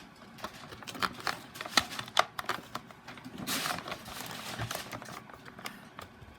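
Packaging being handled as a model horse is taken out of its box: scattered small clicks and ticks, with a brief rustle about three and a half seconds in.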